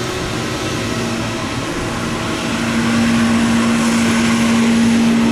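Airbus A320neo jet engines running on takeoff: a dense rushing noise with a steady droning tone through it, growing louder about three seconds in.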